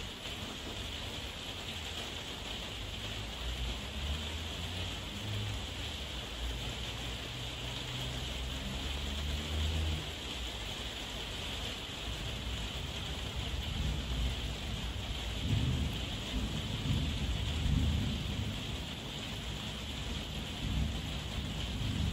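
Heavy rain falling steadily, with low rolling thunder rumbling underneath. The thunder swells about halfway through and again in the second half.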